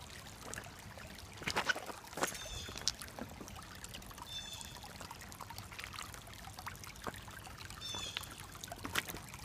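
Shallow creek water trickling over stones, with a few sharp knocks and splashes of footsteps wading through it.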